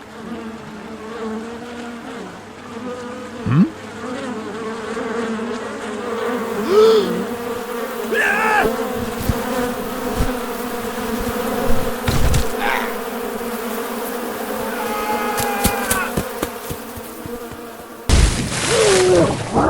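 Flying insects buzzing steadily around, with a few short animal or bird calls and a quick chirping series over the buzz. A sudden louder sound cuts in near the end.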